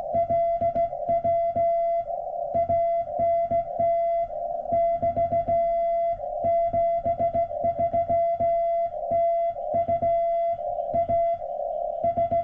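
Morse code (CW) from an amateur radio transceiver: a steady tone of about 700 Hz keyed on and off in dots and dashes, with band hiss filling the gaps between elements and a low click at each keying.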